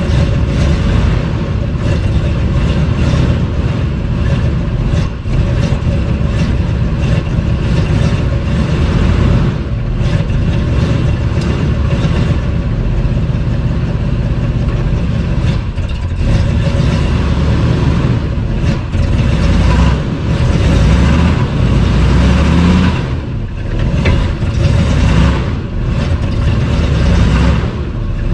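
Square-body Chevrolet pickup's engine running steadily, with the revs rising and falling a little in the last third.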